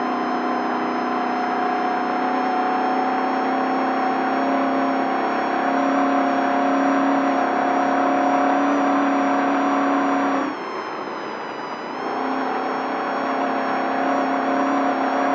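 Desert race truck's engine held at high revs down a straight, a steady droning note that climbs slightly. About ten seconds in the driver lifts off for over a second and the note drops away, then it comes back on the throttle.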